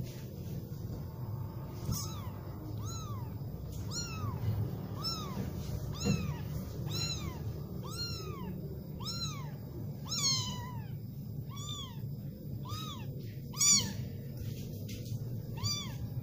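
Young kitten mewing over and over, high thin cries about once a second. Each cry rises and then falls in pitch; one near the middle wavers longer, and one a little later is louder.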